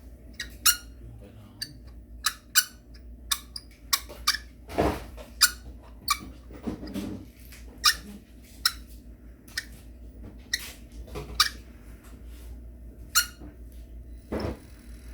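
DJI Ronin-SC gimbal's pan motor squeaking in short, sharp chirps at irregular intervals, one or two a second, over a steady low hum, with a few duller, longer noises between. The squeak is the fault being shown in the pan motor.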